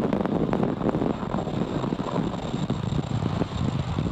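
Onboard audio of a Falcon 9 second stage in flight: its Merlin Vacuum engine burning, heard as a steady rough rumble with dense crackling.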